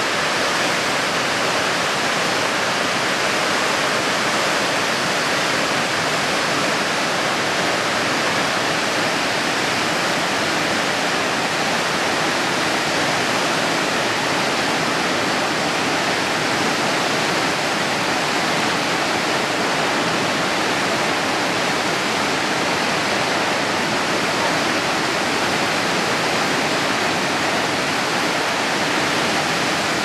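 Loud, steady, unbroken rush of Niagara Falls, masses of water plunging over the brink into the gorge.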